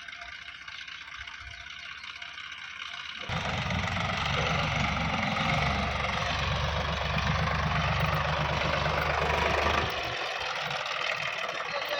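Diesel engine of heavy machinery running. It becomes suddenly loud about three seconds in, with a strong low rumble that drops away near the end.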